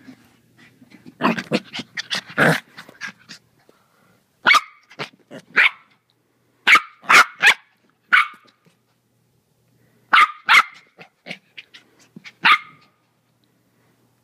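Four-month-old Maltese puppy play-barking while a hand plays with him: short, high-pitched yaps in quick groups of two or three, about a dozen in all, with brief pauses between the groups.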